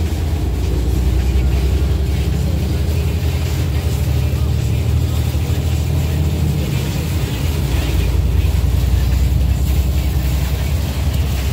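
Steady low rumble of a vehicle driving in pouring rain, heard from inside the cab: engine and wet-tyre road noise with a faint hiss of rain and spray.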